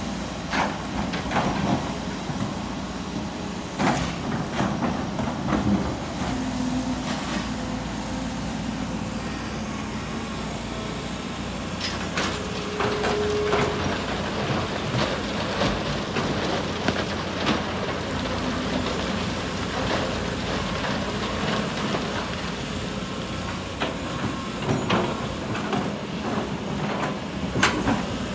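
Kobelco excavator's diesel engine running steadily while it loads sand and rock into a dump truck. Sharp knocks come now and then from stones striking the truck's metal screen and bed.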